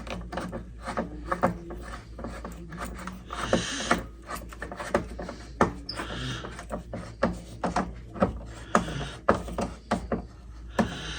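Screwdriver tightening the reset screw of a Firelite BG10 fire alarm pull station: irregular clicks and taps, with a short scraping rasp every couple of seconds.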